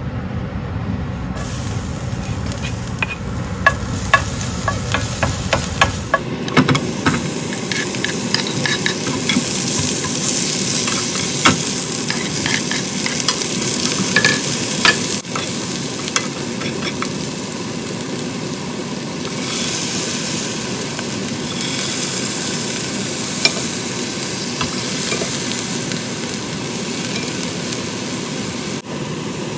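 Food stir-frying in a pan: a steady sizzle, with a spatula repeatedly clicking and scraping against the pan, busiest in the first half.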